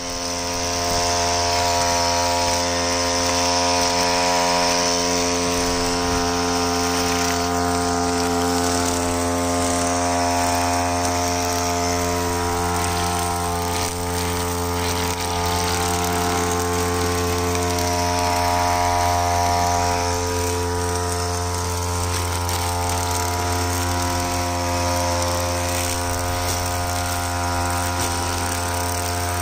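52 cc two-stroke backpack brush cutter running steadily at a constant speed while trimming grass and weeds.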